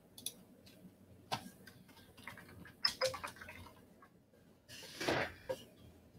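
Scattered computer mouse clicks and keyboard keystrokes while a name is typed into a form, with a short soft rush of noise about five seconds in.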